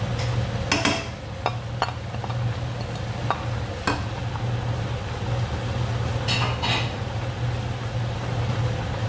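A slotted spoon stirs minced chicken and chorizo frying in a stainless steel wok, clicking and scraping against the metal now and then over a steady sizzle. A low hum runs underneath.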